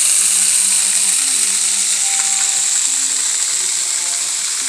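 Steady rush of water pouring over a dam's waterfall, a loud high hiss that eases slightly toward the end, with faint music underneath.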